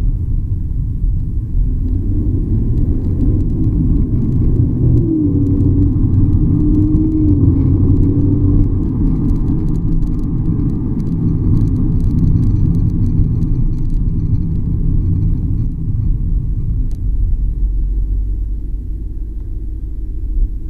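Steady low road and tyre rumble inside the trunk of a 2018 BMW 750i (G11) on the move, with faint creaks and ticks from the rear suspension between about ten and fourteen seconds in. The creaking is the abnormal noise the owner is chasing. A wavering hum runs from about five to nine seconds in.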